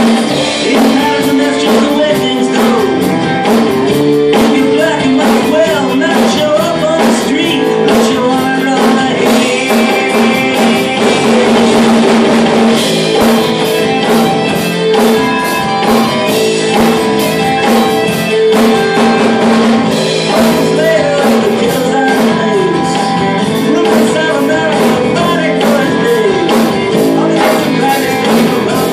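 A rock song with singing and guitar, with a Mapex acoustic drum kit played live along to it in a steady, even beat.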